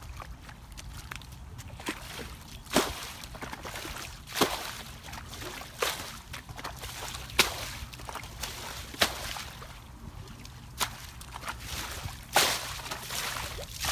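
Water sloshing and splashing as a plastic bucket is repeatedly scooped through a shallow muddy pool and its water thrown out over the bank, bailing the pool. There is a sharp splash about every second and a half.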